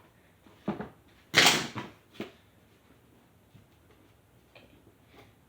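A parcel being handled: a dull knock, then a brief loud rustling scrape, then a single click.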